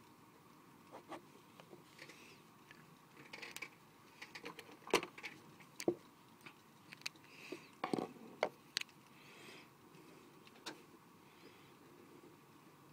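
Pen scratching across paper in short strokes, with scattered sharp clicks and knocks, the loudest about five, six and eight seconds in.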